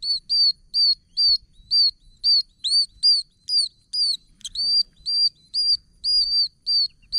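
Male oak toads giving breeding calls from a wetland: a steady run of short, high-pitched peeps, about two a second, some of them overlapping.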